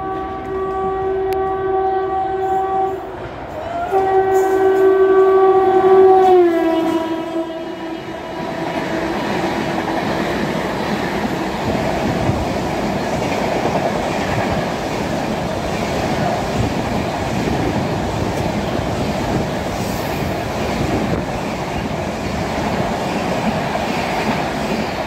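An express train's locomotive horn sounds twice, the second blast dropping in pitch as the locomotive passes. The coaches then run by at speed with a steady rumble and clickety-clack of wheels on rail joints.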